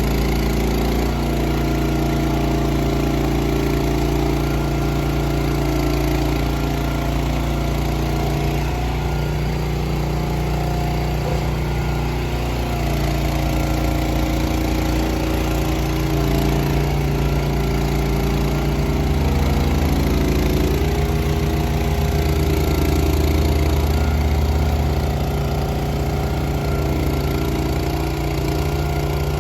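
Farm tractor engine running steadily, its pitch and load shifting a little now and then.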